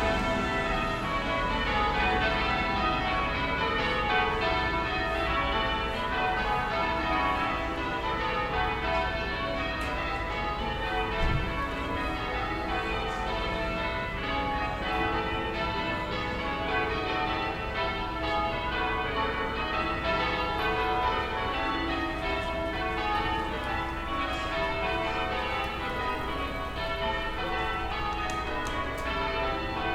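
Distant church bells ringing, a continuous run of overlapping bell strokes at many pitches in a steady rhythm, over a low steady town rumble.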